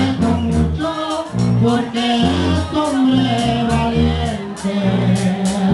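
Live Sinaloan banda music: a tuba plays a bouncing bass line under brass and a steady beat of drum hits, with singing.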